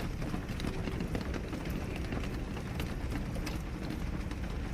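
Heavy rain falling on a small camper van's roof in strong wind: a steady low rumble with many scattered sharp drop hits.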